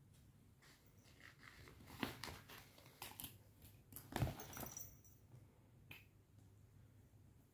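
A cat batting and biting at a pom-pom pen on a fabric backpack: soft scuffs, rustles and light clicks, loudest about two seconds in and again about four seconds in.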